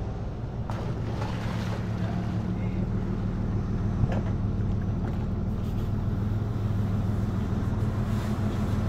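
A boat engine idling, a steady low hum that does not rise or fall.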